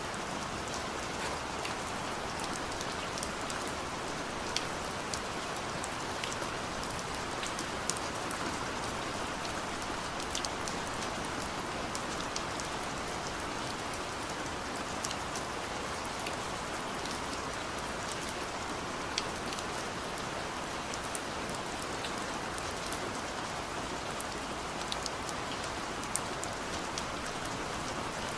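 Steady rain falling, an even hiss scattered with the sharp ticks of individual drops striking a surface.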